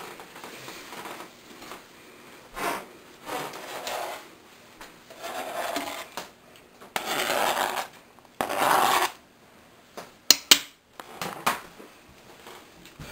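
Chopped green pepper being scraped off a cutting board into a ceramic slow-cooker pot: several short rasping scrapes, then two sharp knocks in quick succession near the end.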